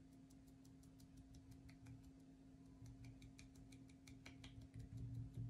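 Faint quick taps, about six a second, of a paint sponge being dabbed through a stencil onto a small wooden toy truck, with a louder soft bump near the end.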